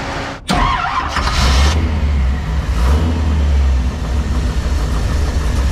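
AMC 401 V8 starting about half a second in, flaring briefly, then settling into a steady, loud idle. It is started to check whether the power steering pump's clattering is cured after its loose mounting stud was tightened.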